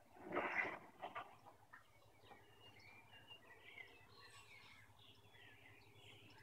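Faint small-bird chirps, scattered and intermittent, with a brief soft rustling noise about half a second in.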